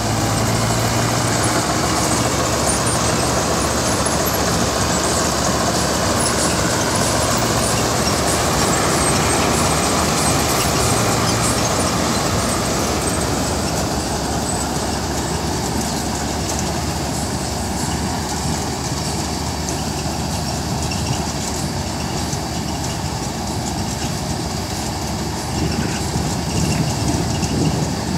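Mahindra Balkar combine harvester running under load as it works through the crop: its engine and threshing machinery run steadily. The sound eases a little in the second half as the machine moves away.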